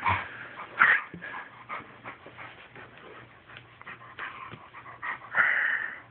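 Wolf puppy making short vocal sounds while being handled on his bed, the loudest about a second in and a longer one near the end.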